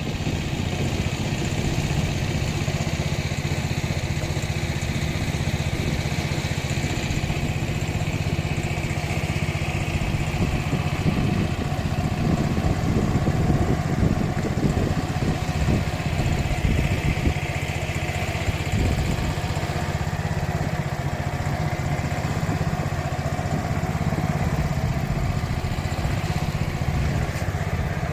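A small tour boat's engine running steadily at a constant speed.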